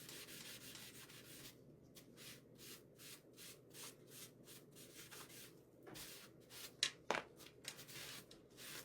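Quick, repeated scratchy rubbing strokes, about three a second, as watered-down glaze paint is mixed.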